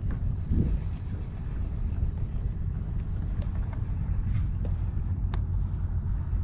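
A steady low engine hum runs throughout, with a soft thump about half a second in and scattered light clicks and taps.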